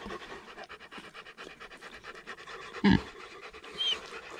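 A dog panting fast and steadily close by, with one short sharp sound about three seconds in.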